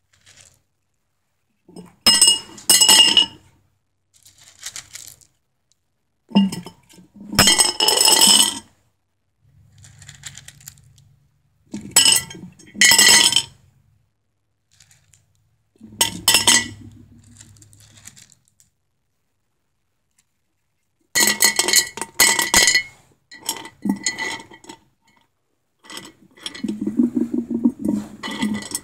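Small rocks dropped into a glass jar, clattering and clinking against the glass in about seven bursts of one to two seconds each, with the glass ringing.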